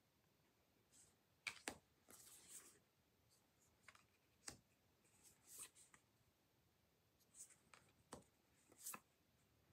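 Thick, non-glossy tarot cards being flipped through one at a time: soft sliding swishes as each card is drawn off the deck, and light taps as it is laid down, several in a row.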